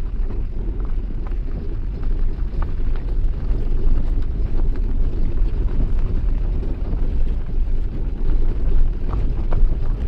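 Wind buffeting the microphone: a loud, uneven low rumble that rises and falls in gusts.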